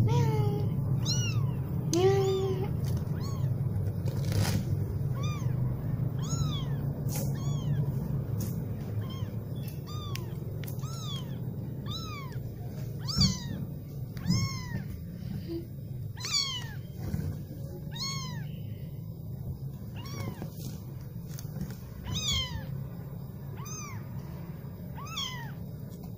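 Very young kittens mewing over and over: short, high-pitched cries that rise and fall in pitch, about one a second. There are a couple of lower calls near the start, and a low steady rumble runs underneath.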